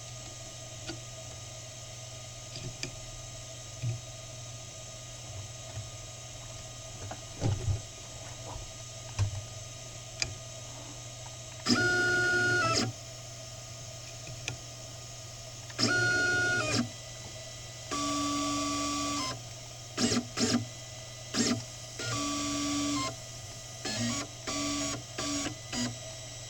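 Stepper motors of a small CNC PCB milling machine whining in short moves as the axes reposition between drilling and milling passes, each move a steady-pitched tone lasting about half a second to a second and a half, about seven of them in the second half. A steady low machine hum runs underneath, with a few faint ticks in the first half.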